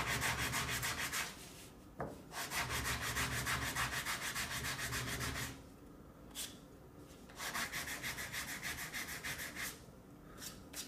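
120-grit sandpaper rubbed quickly back and forth over the saw-cut edges of a small octagonal wooden base, the first coarse pass that smooths the rough, stepped cut. It comes in three bouts of fast strokes, several a second, with short pauses between.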